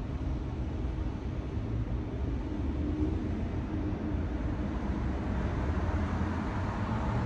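Steady low rumble of passing road traffic that swells slightly toward the end.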